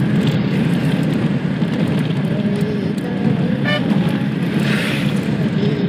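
Car driving, with a steady engine and road rumble heard from inside the cabin. A brief toot comes about three and a half seconds in.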